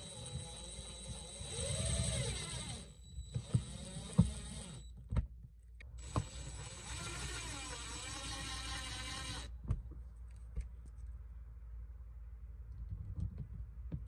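Hand screwdriver driving the mounting screws of a metal switch panel, with several sharp clicks and scrapes of the tip in the screw heads. Under it a steady hiss with a high whine comes and goes in two stretches of a few seconds each.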